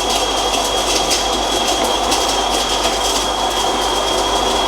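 Electric coffee grinder running on its espresso setting, grinding coffee beans: a loud, steady whir with a constant high-pitched motor whine.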